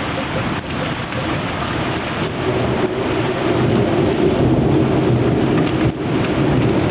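Heavy rain pouring steadily, with a rumble of thunder building up about a third of the way through and carrying on.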